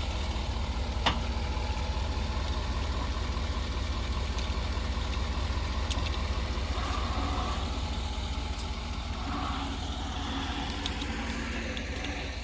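An engine idling steadily with a low rumble, and a sharp click about a second in.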